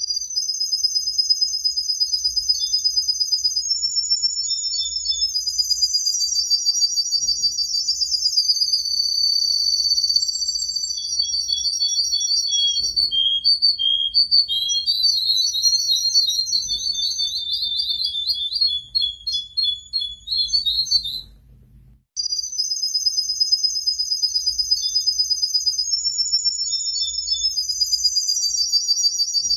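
Domestic canary singing continuously in rapid, high-pitched trills and rolls. The song breaks off briefly about 21 seconds in, then starts again.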